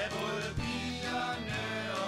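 Music: a stretch of a country-style sing-along song with no words sung.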